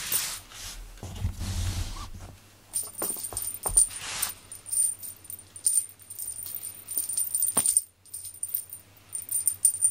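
A cat toy jingling and rattling: irregular clicks with a thin high metallic ring, on and off, and a couple of short rustles near the start and about four seconds in.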